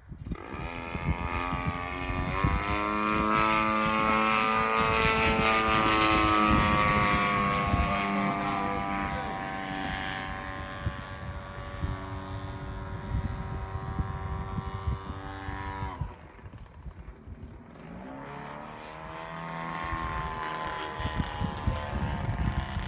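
Fokker aircraft's engine and propeller droning overhead during aerobatics, its pitch slowly rising and falling with the manoeuvres. It drops back sharply about sixteen seconds in, then builds again.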